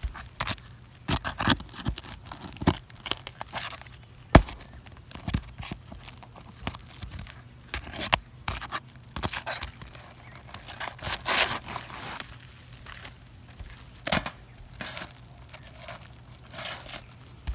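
Hand tools working on 3-tab asphalt shingles to pull out a damaged tab: irregular scraping, tearing and rustling with scattered knocks, one sharp knock about four seconds in.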